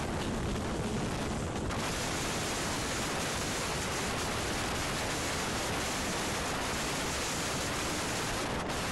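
Steady rush of wind and running noise at the open window of a moving Rhaetian Railway train, with heavy wind buffeting on the microphone. The hiss grows brighter about two seconds in.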